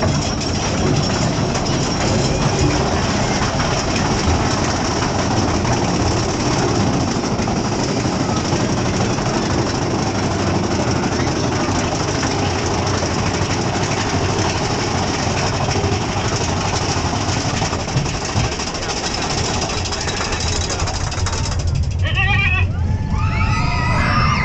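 Big Thunder Mountain Railroad mine-train roller coaster running along its track: a steady, noisy rush of the moving train and the air over the open car. Riders' voices shout out near the end.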